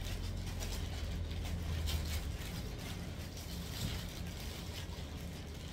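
A low steady hum with faint scattered ticks and rustles: background room noise with no speech.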